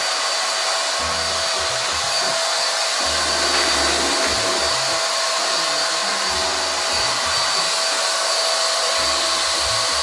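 Handheld hair dryer blowing steadily: a constant rushing hiss with a thin, steady motor whine, drying a short haircut.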